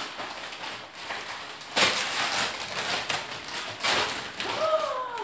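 Gift wrapping paper being torn and crumpled, a continuous rustle with louder rips about two and four seconds in. Near the end a short voice sound slides down in pitch.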